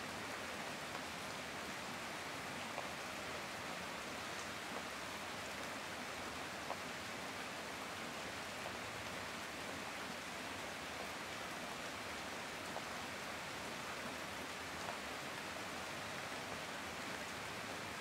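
Heavy rain falling steadily: an even hiss, with louder drops or drips tapping now and then.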